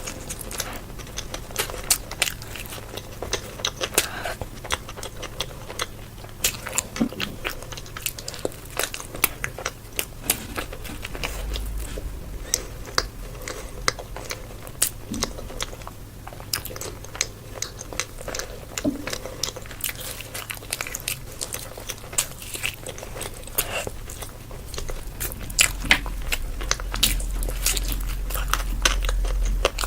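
A person eating crunchy food close to the microphone: many irregular crisp bites and crunches with chewing between them. A low rumble sits underneath about a third of the way in and grows stronger near the end.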